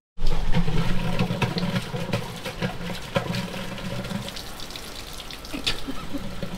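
Water pouring and splashing, strong at first and tapering off over several seconds, with a few knocks.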